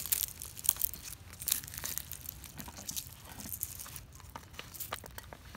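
Chopsticks breaking into the crisp, deep-fried scales and flesh of a whole giant gourami: a run of irregular, fairly quiet crackles and crunches.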